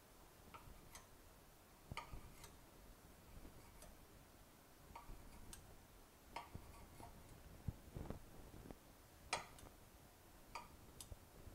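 Chef's knife cutting soft dough strips into small squares, the blade tapping a granite countertop in faint, irregular ticks a little more often than once a second.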